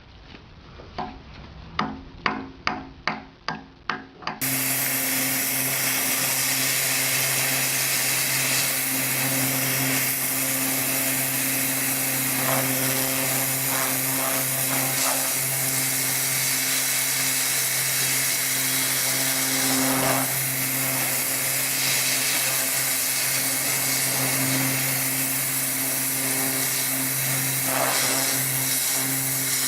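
A quick run of sharp knocks, then about four seconds in a cut to a woodworking power tool running steadily, with a constant low hum under a wide, even noise.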